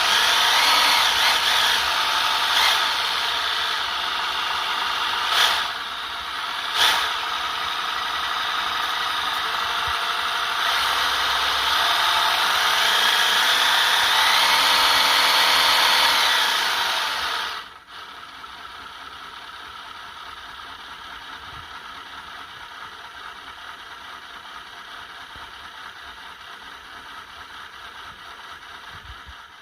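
Small 1/32-scale model vehicle running, its little motor and gears whirring and rattling, rising and falling in pitch, with a few sharp clicks. About 18 seconds in it drops suddenly to a much quieter steady whir.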